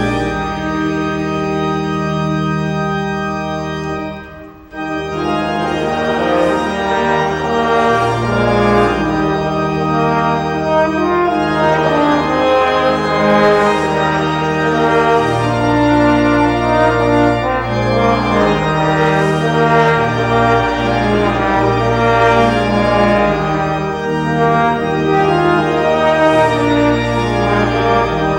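Church organ playing sustained chords over a slowly moving bass line, with a brief break about four and a half seconds in before the music carries on.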